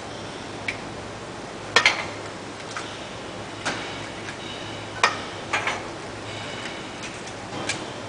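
Eggs being cracked against the rim of a stainless steel mixing bowl: sharp, irregular taps roughly once a second, some doubled, each with a brief metallic ring.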